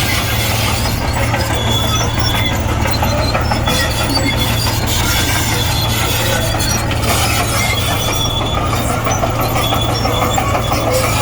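Komatsu D58E crawler bulldozer running steadily under a loud diesel drone, with short high squeals from its steel tracks recurring about once a second.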